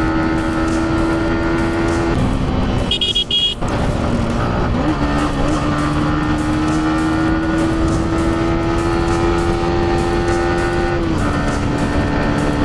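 Sport motorcycle engine at high, steady revs with wind rush. The note eases off for a moment about two seconds in, with a brief high-pitched beep, then climbs back up and holds before stepping down near the end.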